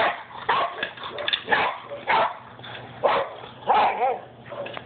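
Two boxer dogs play-fighting over a ball, giving a run of short, rough barks about every half second.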